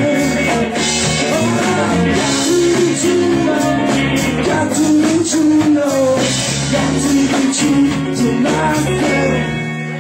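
Rock band playing live: drum kit and guitars, loud and steady.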